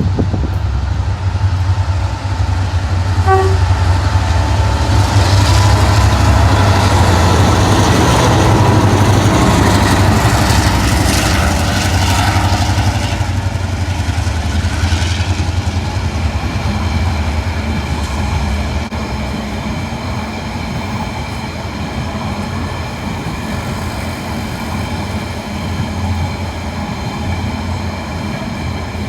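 Train running with a steady low rumble that grows loudest in the first half and then eases to a steadier level. A short high tone sounds about three seconds in, and a steady whine of several thin tones runs through the later part.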